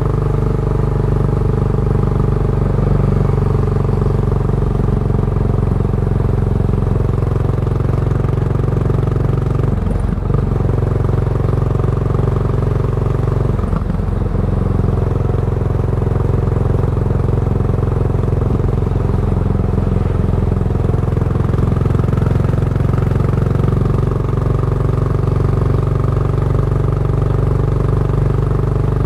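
Exhaust note of a Yamaha SR400's air-cooled single-cylinder four-stroke engine, breathing through a Goods tapered cone slip-on muffler, running steadily while the motorcycle cruises. The note breaks briefly twice, about ten and fourteen seconds in.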